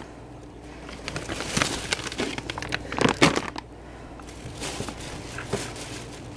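Plastic packaging crinkling and rustling as bags of frozen food are handled, in uneven bursts that are loudest around 3 seconds in. A faint steady hum runs underneath.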